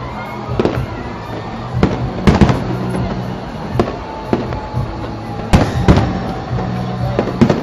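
Fireworks going off in an irregular run of about nine sharp bangs, the loudest about two and a half seconds in and again around five and a half seconds in, with music playing underneath.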